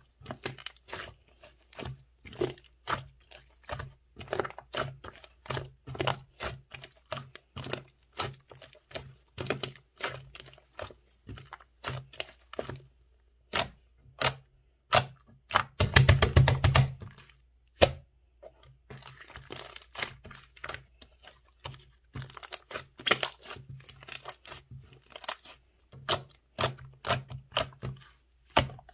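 Soft-serve-style slime being squished and pressed by hand, giving irregular crackling, popping clicks. There is a dense, rapid run of pops about midway.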